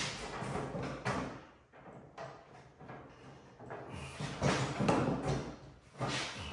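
A pipe being bent by hand around a wooden template on a metal table, scraping and creaking against it in two stretches: near the start and again from about four seconds in.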